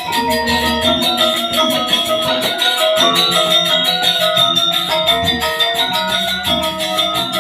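Balinese gamelan music accompanying a Rejang dance: bronze metallophones ring held tones over a fast, even pulse of percussive strokes.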